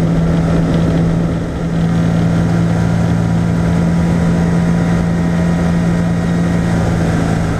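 Single-engine light aircraft's piston engine and propeller running at takeoff power, a loud steady drone, heard from inside the cockpit during the takeoff roll.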